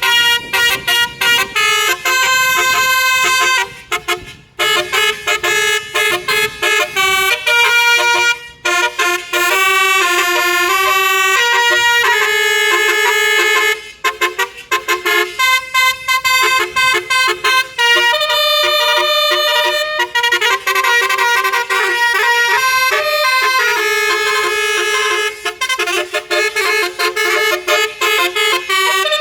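Bus telolet horn, a Basuri multi-tone musical air horn, playing a tune of held and quickly changing notes, broken by a few short pauses.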